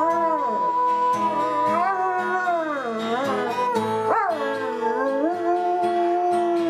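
A dog howling along to music, in long held notes that waver and dip in pitch.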